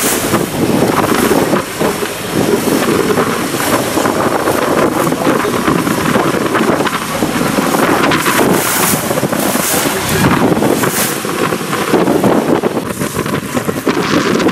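Wind buffeting the microphone in uneven gusts over the wash of water around a boat on the sea.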